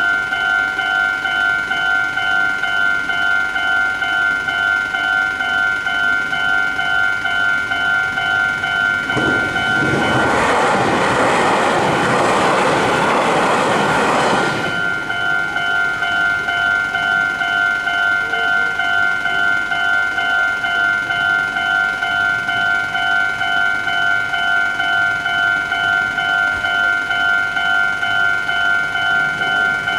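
Level-crossing warning bell on a Meitetsu line dinging steadily at a regular beat. A train rushes across the crossing from about nine to fifteen seconds in, its running noise swamping the bell. The bell keeps ringing after the train has gone.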